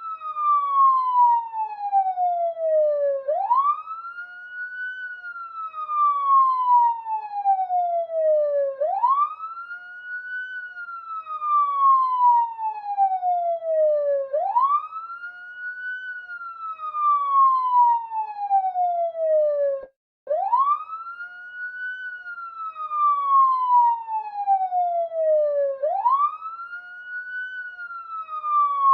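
Police siren in a slow wail: each cycle jumps quickly up in pitch, then glides slowly back down over about five seconds, repeating steadily five times. The sound cuts out for a split second about twenty seconds in.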